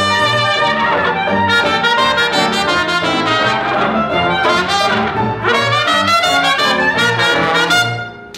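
Dixieland jazz band playing ensemble: cornet, trombone and clarinet over a steady beat from banjo, piano and string bass. These are the closing bars, and the music stops about eight seconds in.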